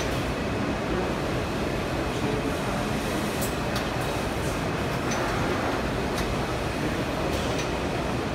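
Heliot Sockspeed sock boarding machine running: a steady mechanical din with a few irregular light clicks in the middle.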